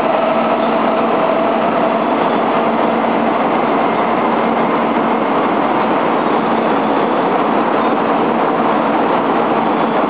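Kyushu Shinkansen train running at speed: a steady, even rushing noise, with faint whining tones that fade out in the first few seconds.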